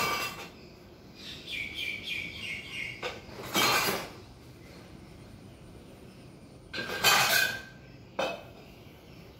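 Several short clattering crashes, like dishes or utensils knocked together, with a quick run of bird chirps in between, about a second and a half in.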